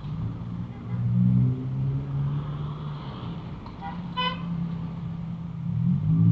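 Road traffic: steady engine hum with one short vehicle horn toot about four seconds in, and engine noise growing louder near the end.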